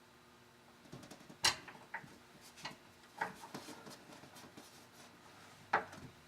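Scattered sharp metal clicks and knocks from tightening the arm of an LCN 1460 door closer. The loudest knock comes about a second and a half in, with a few fainter ones after it and another near the end.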